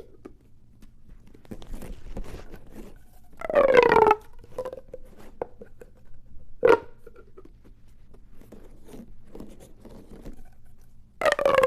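Plastic pop tube fidget toy being stretched and squashed, its ridges clicking over in a rasping, pitched ratchet. One loud rasp falls in pitch about three and a half seconds in, a short snap comes near the middle, and another rasp starts near the end, with light crinkly clicks in between.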